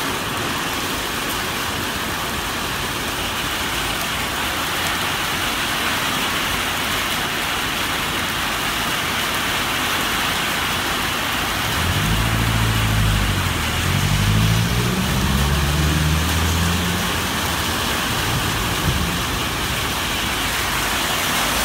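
Heavy rain pouring onto a wet street and pavement, a steady hiss. From about twelve to seventeen seconds in, a vehicle's engine runs close by, its pitch stepping up in stages as it pulls away.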